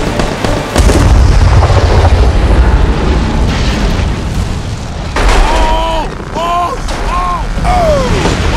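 A large movie explosion: a car on a tow truck blows up with a deep rumble that starts about a second in and carries on for about two seconds. In the second half, men yell several times in a row, each yell rising and falling.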